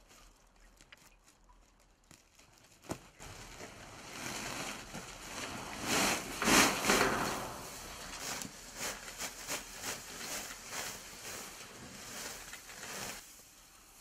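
Dried thyme poured out of a cloth sack into a stainless-steel distillation tank: a short knock about three seconds in, then a rush of dry rustling that is loudest around the middle, followed by scattered crackling rustles as the herbs settle.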